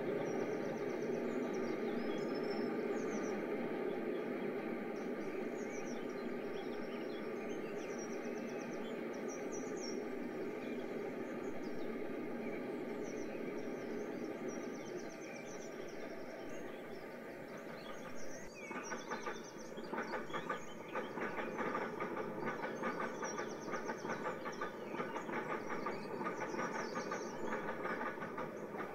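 Added sound of a railway train passing: a steady rumble, then from about two-thirds through a rapid clatter of wheels over rail joints, with birds chirping in the background.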